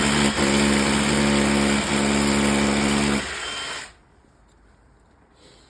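Electric drill running at a steady speed while fixing a wall-mounted plastic base plate. It drops to a quieter level about three seconds in and stops about a second later.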